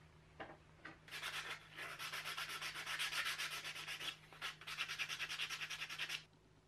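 A small piece of scrap wood being sanded by hand with sandpaper: quick, even back-and-forth scratching strokes, with a short pause about four seconds in, stopping suddenly near the end.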